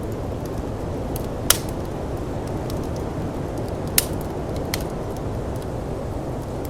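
Steady low rush of blizzard wind with a wood fire crackling over it: two sharp pops, about one and a half seconds in and at four seconds, a smaller snap just after, and faint ticks between.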